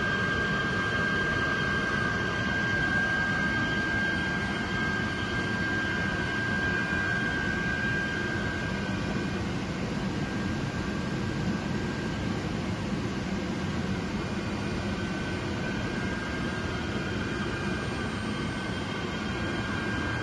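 Air pump of a print sampling-inspection machine running steadily: a low whooshing hum with a steady high whine over it.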